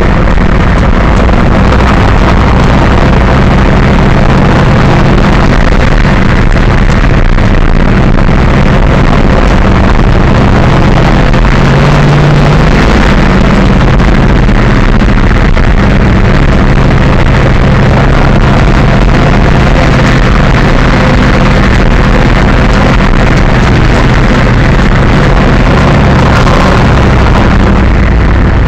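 Monster truck engine running loud and constant as the truck drives over a dirt track, its note rising and falling with the throttle, heard from inside the cab.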